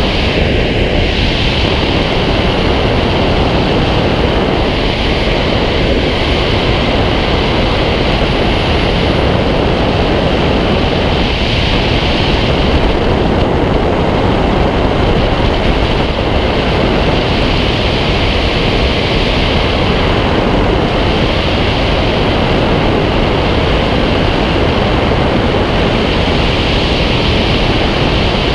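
Steady, loud rush of airflow over a wing-mounted camera's microphone as a glider flies, a dense windy roar that swells and eases slightly every few seconds.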